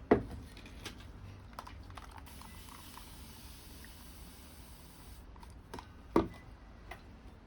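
Water trickling onto potting soil in a pot for a few seconds in the middle, between sharp knocks of the pot and small handling clicks, the loudest knocks near the start and about six seconds in.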